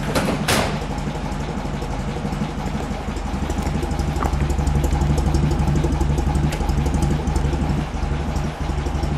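The exhaust of a 1936 Alvis drophead coupe's engine idling steadily, heard close to the tailpipe, with a sharp click about half a second in.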